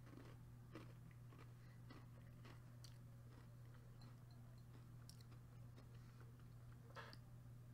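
Faint chewing of an Oreo cookie, with a few soft clicks scattered through, the clearest near the end, over a low steady hum; otherwise near silence.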